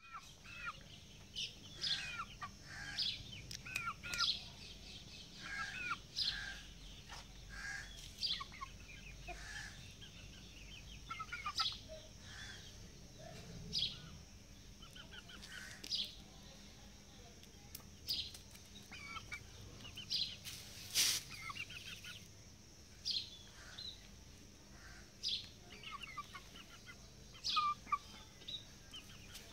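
Young Aseel chickens, about three and a half months old, giving short clucks and chirps every second or two. One brief sharp noise comes about two-thirds of the way through.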